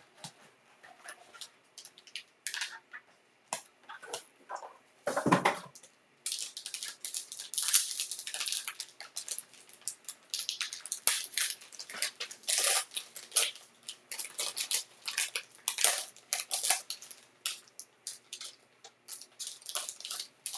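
Trading-card box packaging being torn open and handled: irregular crackling and crinkling of wrapper and cardboard, densest through the middle, with one louder tear or thump about five seconds in.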